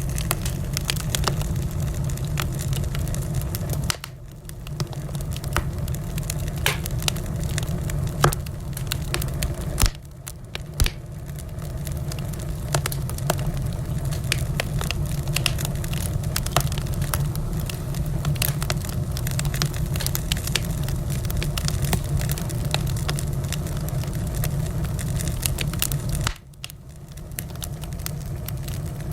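Wood fire crackling, with many sharp pops and snaps over a steady low rumble. The sound dips briefly three times: about four seconds in, about ten seconds in, and near the end.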